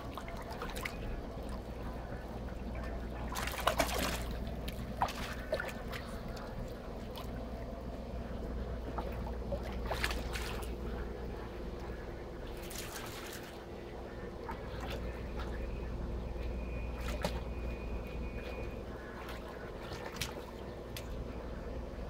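Swimming-pool water splashing and trickling as a cocker spaniel jumps in and swims, with the loudest splash about four seconds in and more splashes later. A steady low hum runs underneath.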